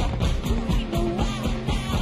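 Live rock music played by a band at a concert, with a steady driving beat.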